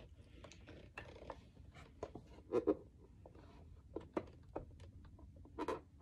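Faint handling sounds of a plastic portable AM/FM radio turned in the hands: scattered light clicks and taps, with a couple of louder knocks about two and a half seconds in and again near the end.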